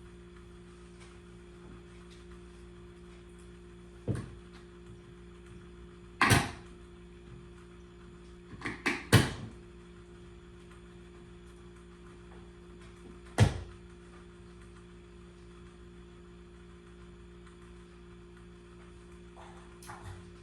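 A handful of short, sharp knocks: one about four seconds in, a loud one about six seconds in, a quick run of three around nine seconds, and a last one about thirteen seconds in. They sound over a steady low hum.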